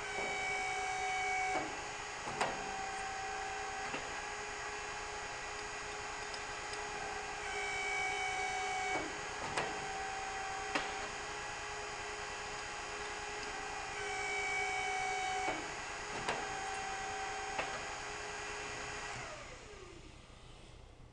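Winton E50 hydraulic tube end former running its hydraulic pump with a steady hum; three times the pitch and level rise for about a second and a half as the ram strokes to expand a tube end, each cycle followed by sharp clicks and knocks. Near the end the pump motor winds down in a falling whine as it is switched off.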